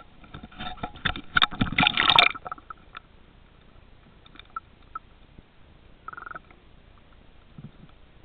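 Water splashing and gurgling around the microphone as the camera is plunged under the surface, loudest in the first two seconds. It is then muffled and quiet underwater, with scattered faint clicks and a short burst about six seconds in.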